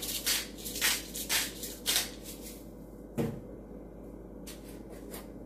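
Seasoning being shaken out of a spice shaker jar onto potatoes in a casserole dish: a quick run of short rattling shakes, about four a second, then a single knock about three seconds in and a couple of faint shakes after it.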